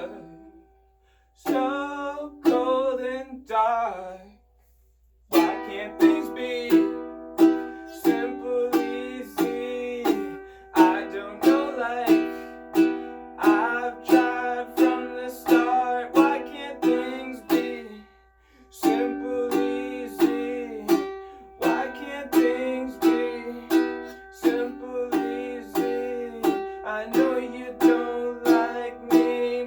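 Makala ukulele with an agathis top and mahogany back, strummed in a steady rhythmic chord pattern. The strumming stops briefly twice in the first five seconds and once more past the middle.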